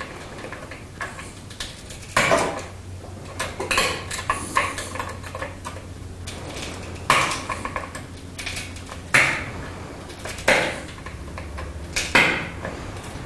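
Glass being pressure-flaked on a small wooden anvil: about six sharp, glassy snaps at irregular intervals of one to two seconds as small flakes break off the edge, with fainter clicks of the pressure tool on the glass between them.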